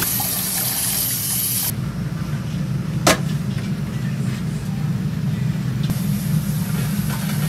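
Tap water running into a sink, then a gas stove burner's steady low roar under a pot, with one sharp click about three seconds in.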